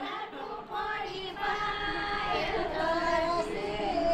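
High voices singing in long, held notes.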